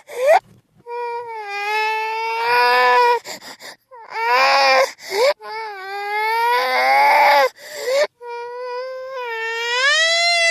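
Infant crying played in reverse: a run of long wails, each a couple of seconds long with short breaks between, several ending in an upward sweep in pitch rather than falling away.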